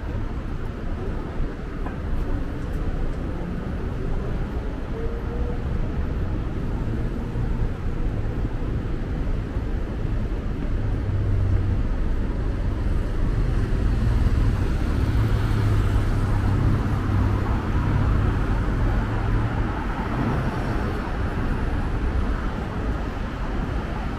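Road traffic on a busy city street: a steady low rumble of engines and tyres, swelling as vehicles pass about halfway through and easing off near the end.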